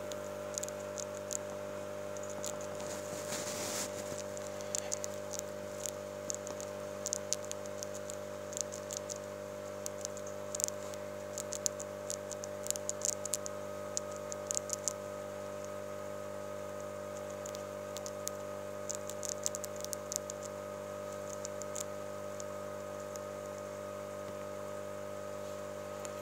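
Baby roof rat gnawing and crunching a small snack: quick clusters of tiny clicks that thin out and stop about twenty seconds in. A steady electrical hum runs underneath.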